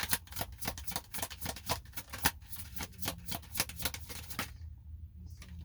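Tarot deck being shuffled by hand: a rapid run of crisp card flicks that stops about four and a half seconds in, over a steady low hum.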